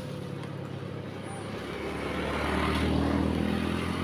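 Motorbike engine approaching and passing close by, growing louder to a peak about three seconds in, then fading.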